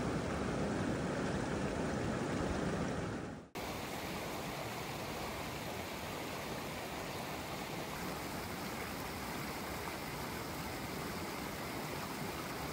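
Mountain stream water rushing over rocks as a steady noise. About three and a half seconds in the sound cuts off abruptly, then resumes as a slightly quieter, even rush of rapids.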